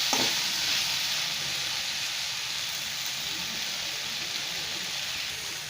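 Chopped okra and tomato sizzling in oil in a pan, a steady hiss that slowly gets quieter. The vegetables are being dry-sautéed without water.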